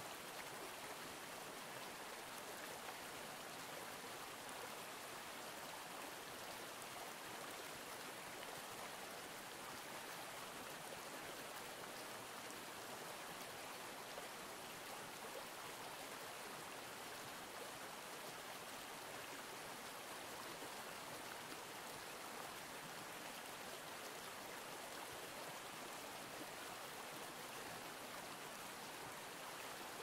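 Water of a stream running, an even, unchanging rush.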